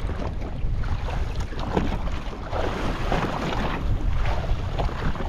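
Wind buffeting the microphone in a steady low rumble, with sea water splashing against the side of a small boat now and then.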